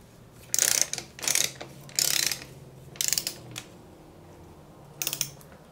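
Ratcheting torque wrench being worked back and forth on a mountain bike's suspension link pivot bolt: five short bursts of fast pawl clicking, the last near the end.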